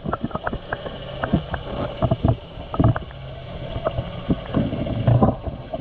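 Muffled underwater sound of a sailboat's hull being scrubbed by hand: irregular clicks and knocks over a low rumble.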